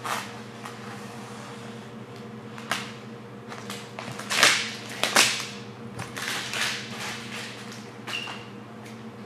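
A sheet of vinyl wrap film, trimmed with scissors and pulled away, rustling and snapping in several short bursts, the loudest two a little past the middle. A steady low hum runs underneath.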